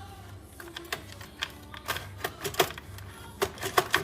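Sharp clicks and knocks of a desktop computer case and motherboard being handled and pried at, as the board is worked loose from the case, coming thicker in the second half. Background music plays underneath.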